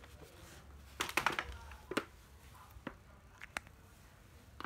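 Handling noise from hard plastic cordless tools being moved by hand: a quick cluster of clicks and knocks about a second in, then a few single taps.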